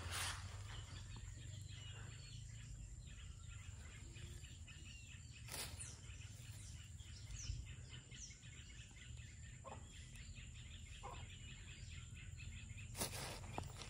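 Quiet garden ambience: a few faint bird chirps, a steady thin high whine, and a couple of brief rustles in the grass.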